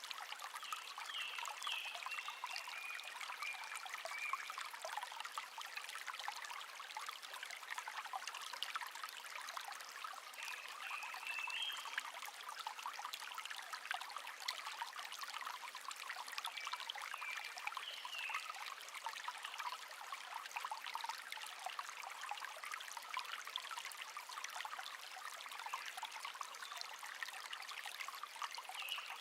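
Shallow stream babbling and trickling steadily. A wild bird sings short phrases four times: near the start, a little before the middle, past the middle and at the very end.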